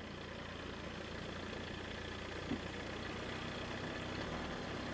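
A car engine running steadily, a low, even hum.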